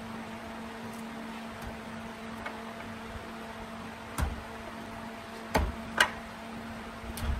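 Steady electric hum with a few sharp knocks and taps as the bamboo workpiece on the wood lathe is handled, the loudest about six seconds in.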